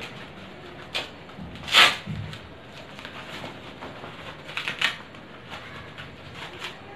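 Padded cricket batting gloves being pulled onto the hands: a low rustle of fabric and leather with a few short scuffs, the loudest about two seconds in and a small cluster near five seconds.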